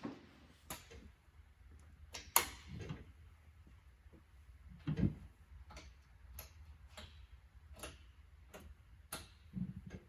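A dozen or so sharp clicks and knocks at irregular intervals, the loudest about two seconds in and about five seconds in. They come from someone climbing onto a Caterpillar D4 crawler and handling its controls while its engine is still off.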